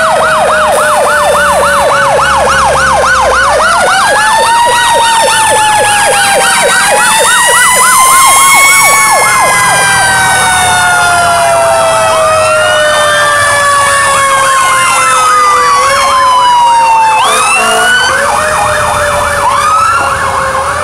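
Several emergency vehicle sirens from the fire engine and emergency SUVs sounding together: a fast yelp sweeping up and down about three or four times a second for the first half, over slower wails that rise and fall, with a fresh wail starting up near the end.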